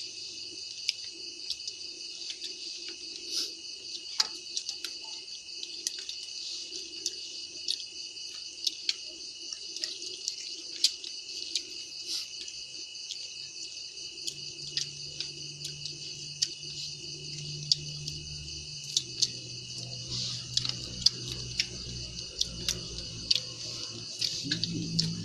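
Steady night chorus of crickets and other insects, with scattered light clicks and taps from people eating by hand from metal bowls.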